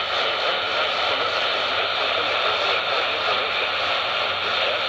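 Staticky AM radio reception: a steady hiss of static from a weak, poorly received broadcast signal.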